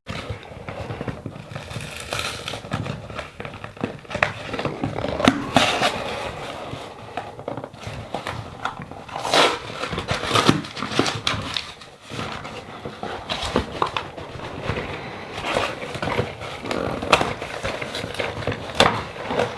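Cardboard shipping box being opened and unpacked: tape ripping, with cardboard and packing material crinkling and rustling and occasional clicks and knocks. A few louder tearing rips stand out in the middle.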